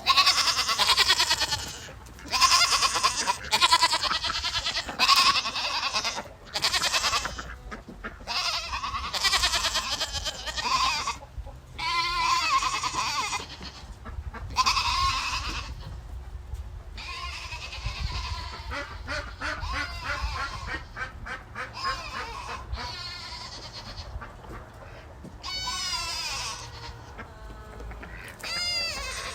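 Goats bleating over and over, loud pitched calls about a second long with short gaps between them, some with a wavering pitch.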